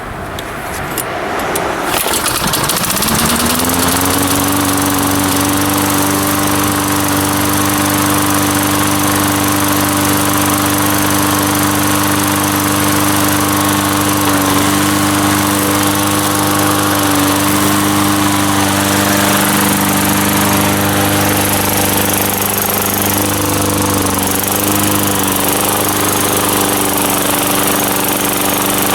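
Tecumseh-powered Lawn-Boy mower engine catching about two seconds in, rising in pitch as it comes up to speed, then running steadily on its replacement carburetor after a tune-up.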